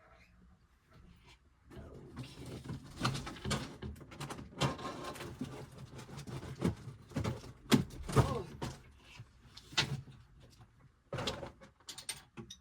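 Craft supplies being handled and rummaged through: a stretch of rustling with scattered knocks and clicks, followed by a few sharp knocks near the end.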